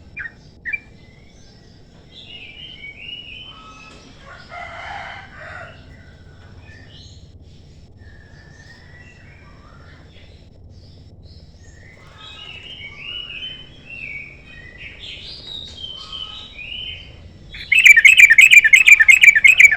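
Yellow-vented bulbul (trucukan) singing bubbly, warbling phrases. Near the end it breaks into a much louder, very fast, evenly repeated trill.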